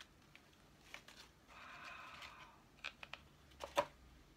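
Faint handling noise as a small gift box and a jewellery piece are unwrapped and handled: a soft rustle, then a few light clicks.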